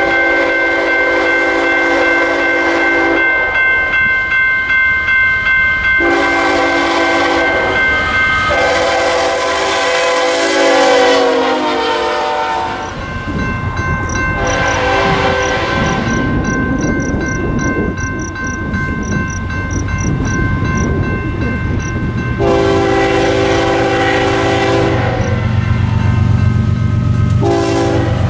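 Nathan K5HL five-chime air horn on a diesel freight locomotive sounding several long blasts and a short one. Its chord drops in pitch as the locomotive passes, about twelve seconds in. After that the locomotive's engine and the train's wheels on the rails rumble loudly under further horn blasts.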